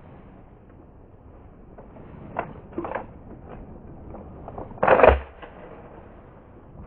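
Shotgun handling and firing: a couple of sharp clacks, then a louder bang about five seconds in.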